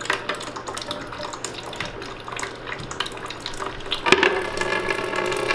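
Water trickling from a cut copper supply pipe into a plastic bucket, with light metallic clicks as fittings are handled on the pipe. About four seconds in a sharper click, then a steady hum joins the trickle.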